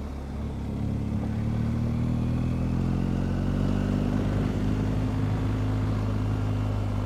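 BMW R1250GS Adventure's boxer-twin engine pulling as the bike gathers speed on a gravel road. It grows louder about a second in, then runs steadily.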